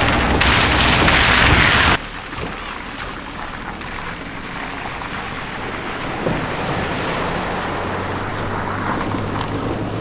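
Vehicles driving through a flooded ford: a loud rush of water spray for the first two seconds that cuts off abruptly, then a small car's tyres sloshing through the water with its engine humming low, and a sharp splash about six seconds in.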